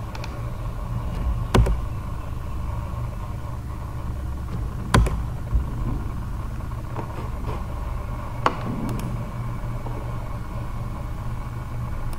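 Steady low background hum, with a few sharp computer mouse clicks through it, the loudest about five seconds in.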